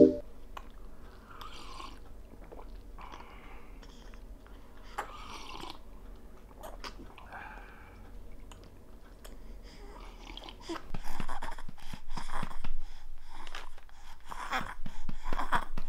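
A two-month-old baby sucking and swallowing milk from a bottle: soft wet sucking and gulping sounds every second or two. About ten seconds in, louder clicking and rustling begins as the feeding ends and the baby is moved upright.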